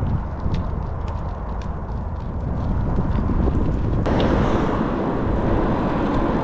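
Steady low rumble of wind and road noise beside a highway as a loaded touring bicycle rides past, with a few faint clicks. About four seconds in it cuts to the louder, fuller rush of wind and tyre noise heard from the moving bicycle.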